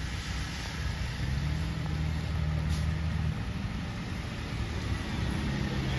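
Fire engine's diesel engine running as it drives up the street, a steady low drone that grows louder from about a second in until past three seconds, then again near the end.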